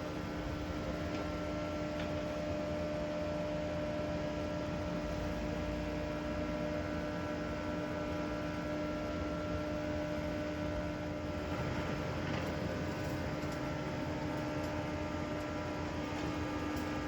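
A steady machine hum holding a constant pitch over a hiss of background noise.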